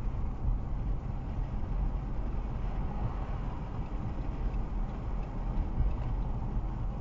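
Steady low rumble of road and engine noise inside a moving car, picked up by a windshield dash cam's microphone.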